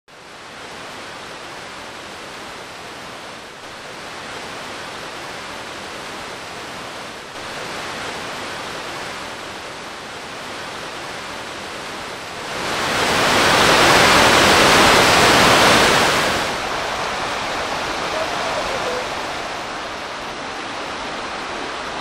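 Rushing white water of the Storforsen rapids on the Pite River: a steady, noise-like rush that grows much louder for about four seconds in the middle, then eases back.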